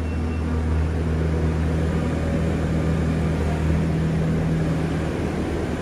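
Merlo telehandler's diesel engine running steadily close by, a low even drone.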